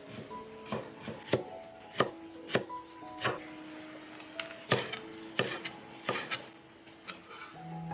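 Chinese cleaver chopping red pepper on a wooden chopping board: sharp, irregular knocks about one to two a second. Soft background music plays underneath.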